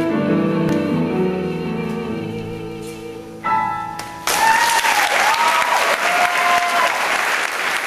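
A female singer's final held note with vibrato over sustained piano chords, ending a little over three seconds in, then a last piano chord. About four seconds in the audience breaks into loud applause with whoops and cheers.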